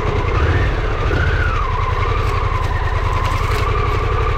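Harley-Davidson Pan America's Revolution Max 1250 V-twin running on the throttle, its pitch wavering up and down, while the stuck bike is pulled and powered out of a bush.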